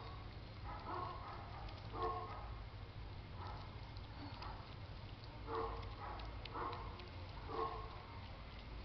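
Piglets grunting: about seven short grunts, spaced a second or so apart, over a low steady rumble.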